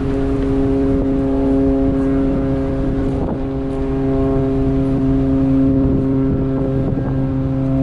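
Ship's horn sounding one long steady blast, with a second, lower note joining about three and a half seconds in, over a low rumble.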